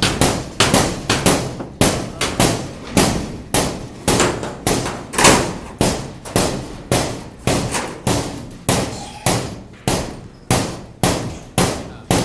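Repeated hammer blows at a steady pace of just under two a second, each a sharp strike with a short ring after it.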